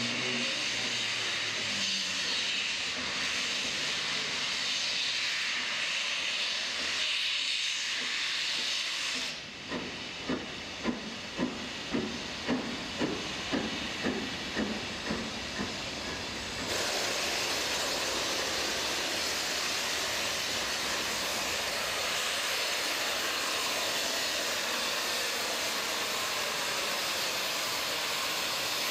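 Steam locomotive 46233 Duchess of Sutherland, a four-cylinder LMS Coronation-class Pacific, hissing loudly with steam. About a third of the way in comes a run of about a dozen exhaust chuffs, about two a second, as it gets the train moving. After that a steady hiss carries on.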